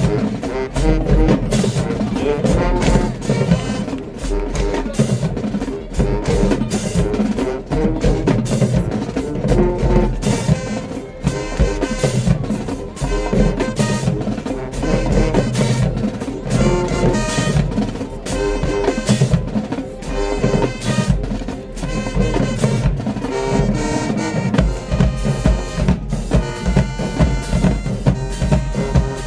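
A high school marching band playing: brass with a drumline beating a steady rhythm.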